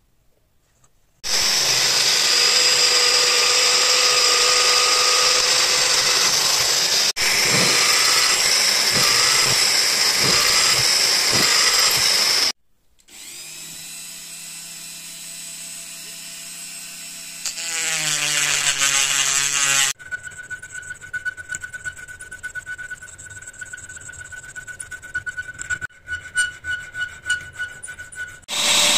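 A drill runs steadily, boring holes through a small metal knife-guard plate to start its tang slot. After a break, a handheld rotary tool with a thin bit whines as it grinds between the holes, its pitch rising near the end. A hand file then rasps back and forth in uneven strokes, opening out the slot.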